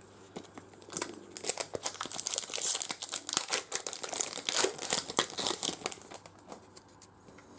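A trading card pack wrapper being torn open and crinkled by hand, a dense crackling that starts about a second in and dies down near the end.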